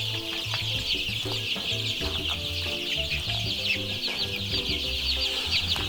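A crowded flock of five-week-old broiler chickens calling together: a dense, continuous chorus of many short, high, slightly falling peeps, over background music with held low notes.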